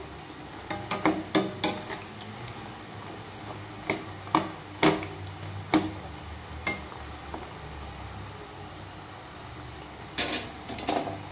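Metal perforated ladle clinking against a steel pot in irregular strikes while stirring masala peanuts deep-frying in hot oil, with the oil sizzling steadily underneath. The clinks come in a quick group about a second in, singly through the middle, and in another group near the end.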